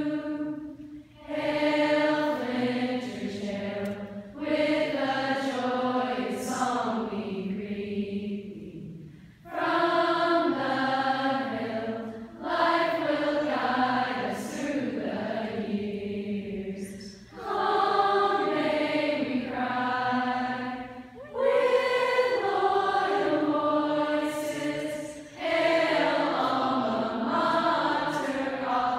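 A large group of girls singing the school alma mater together, line after line, each sung phrase a few seconds long with short breath breaks between.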